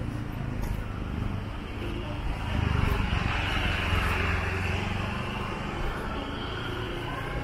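Street traffic, with a motor vehicle passing close about three seconds in, its engine and tyre noise swelling and then fading. Near the end another engine note begins to rise.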